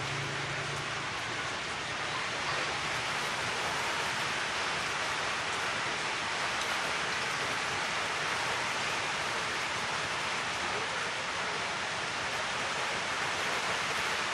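Oxyhydrogen welding torch flame hissing steadily, fed by a hydrogen electrolysis gas generator.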